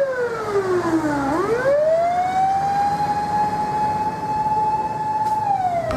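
Emergency vehicle siren wailing: its pitch falls, then rises quickly about a second and a half in and holds a steady high wail, and falls again near the end.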